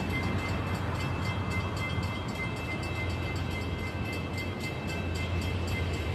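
Passenger train running through a grade crossing: a steady low rumble with the crossing's warning bell ringing rapidly and evenly.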